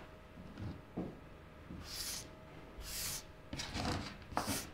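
Light workbench handling noises: a few soft knocks as tools and a metal helping-hands stand are picked up and set down on a cutting mat, with brief rustling hisses in between.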